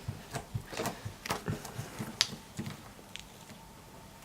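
Homemade slime being squished and poked by hand, making a quick irregular run of small clicks and pops that thin out after about two and a half seconds.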